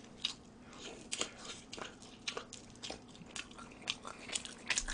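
A person chewing a mouthful of Chicago-style pizza, with irregular mouth clicks and smacks a few times a second.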